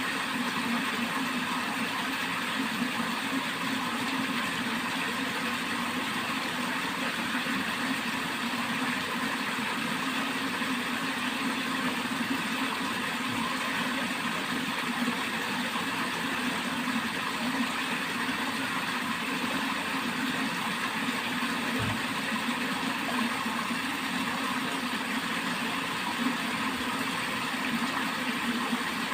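Water flowing steadily along a channel, an even rushing that holds without a break.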